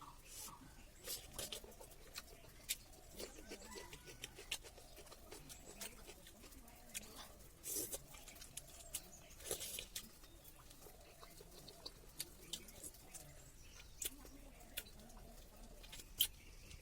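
Quiet eating sounds: scattered mouth clicks and lip smacks from chewing, with a few louder smacks.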